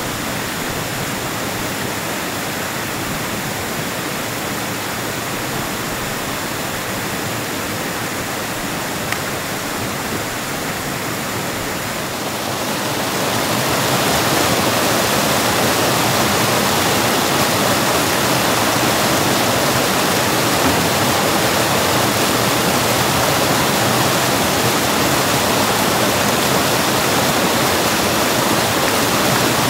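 Heavy rain falling steadily, growing louder about thirteen seconds in.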